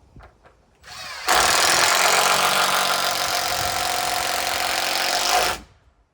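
Power drill-driver running steadily for about four seconds, turning a long screw in a wooden roof beam, then stopping.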